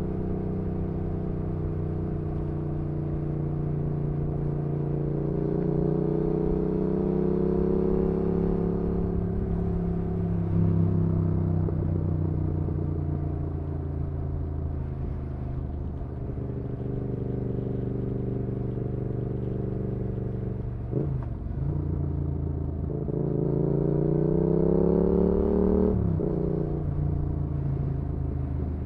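2019 Yamaha XSR700's parallel-twin engine running through an aftermarket IXRACE MKII exhaust, heard onboard while riding. The engine note climbs slowly, falls back about a third of the way in and runs steady for a while, then climbs again and drops sharply at an upshift near the end.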